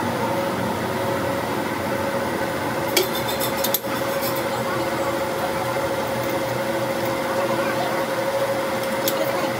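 Metal lathe running with a steady hum, its four-jaw chuck turning a truck drive-shaft yoke being trued against a dial indicator. A sharp metallic clink rings about three seconds in, with a few lighter clicks later.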